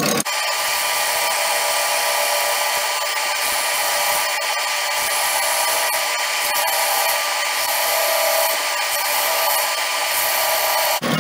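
Colchester lathe running steadily, spinning a plastic sheet held by a pressure turning tool, a machine whine of several steady tones over a hiss.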